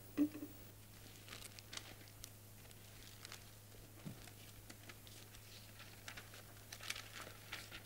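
Faint rustling and light clicks of paper being handled and leafed through, with a soft thump just after the start, over a steady low hum.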